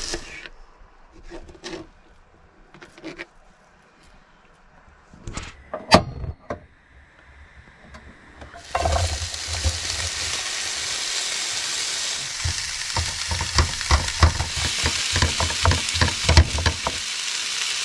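Onions frying in a hot pan: a few scattered knocks, then about halfway through a loud sizzle starts suddenly as they go in, with repeated clicks of a utensil stirring them.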